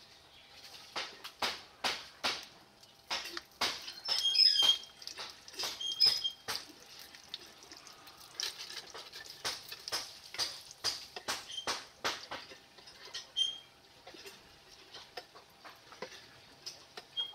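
Hot oil crackling and spitting in irregular pops around a paratha frying on a flat tawa.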